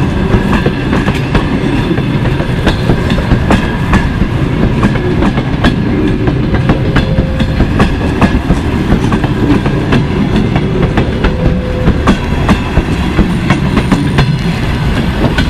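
Russian passenger coaches rolling past close by as the train pulls out of the station: a loud, steady rumble of wheels on rail with frequent sharp clicks as the wheels cross rail joints.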